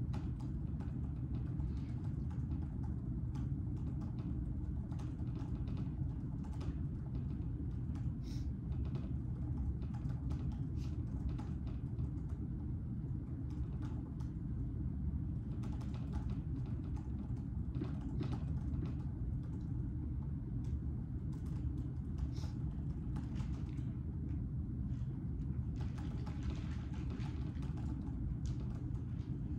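Scattered, irregular clicks of typing on a laptop keyboard over a steady low room hum.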